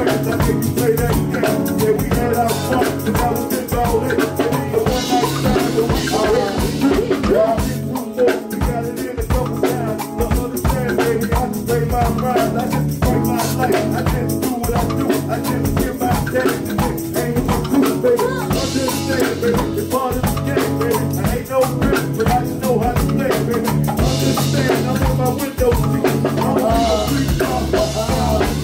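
Live band music through a PA: a drum kit keeps a steady beat under a sustained low bass line, with a lead vocalist singing into a microphone.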